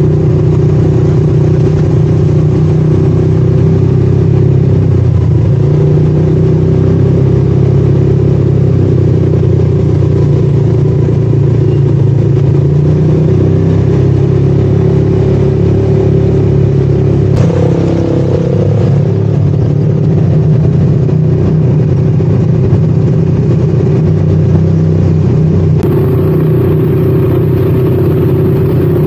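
ATV engine running steadily at an even speed while being ridden, with one sharp knock partway through.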